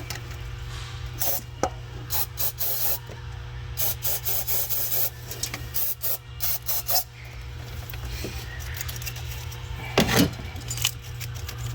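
Aerosol brake cleaner sprayed in repeated short hissing bursts onto fuel injectors seated in the intake, to loosen their stuck O-rings, with a single knock about ten seconds in.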